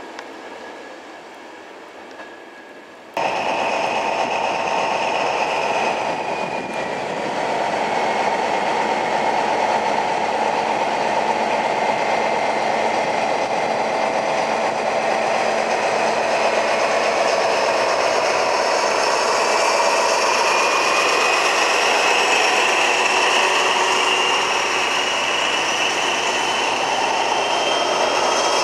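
A passenger train rolling away. About three seconds in, the sound jumps abruptly to a louder, steady running noise from a pair of BB 67400 diesel locomotives approaching, with high whining tones. The main whine rises slowly in pitch toward the end.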